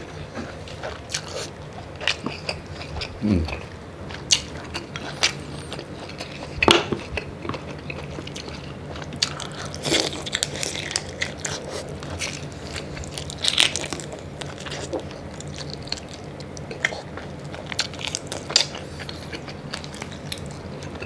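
Close-miked mukbang eating sounds: wet chewing, lip smacks and irregular crunchy clicks as a man eats mud crab, tiger prawn and rice by hand.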